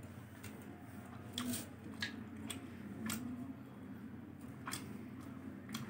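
A person eating by hand: soft squelching of fingers in rasam rice on a steel plate, and chewing. A few faint, sharp clicks are spread through.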